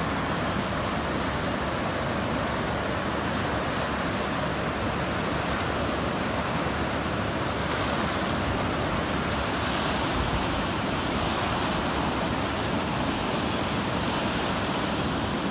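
Steady rush of the flooded Ganga's fast, muddy current running high.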